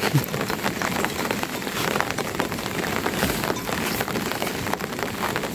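Steady rain falling, a dense patter of many small drops.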